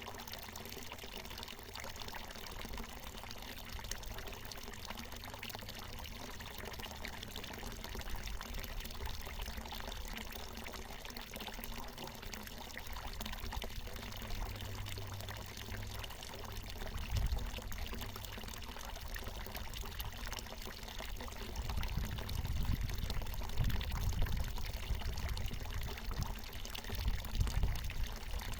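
Water falling from a natural mountain spring, pouring and splashing steadily. A low rumble comes and goes in the second half.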